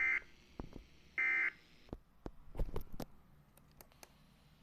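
Digital data bursts of a weather-radio alert (SAME tones), heard as a harsh buzzing screech: two short bursts about a second apart, the last of a set of three. A few faint clicks follow.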